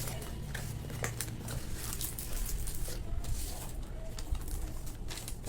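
Parcel packaging crinkling and tearing as it is handled and opened, a busy run of small crackles and clicks.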